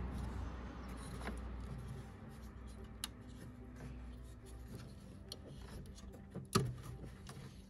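Hands handling the plastic parts of a removed VW Golf 7 xenon headlight unit, the bulb's igniter cap and ballast: faint rubbing and scraping with a few light clicks, a sharp one about three seconds in and a louder knock near the end.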